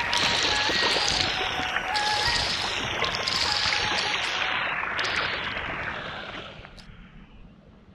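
Water spray from splash-pad fountain arches pouring and splashing, with a melody of background music over it in the first few seconds. The whole sound fades away about six to seven seconds in.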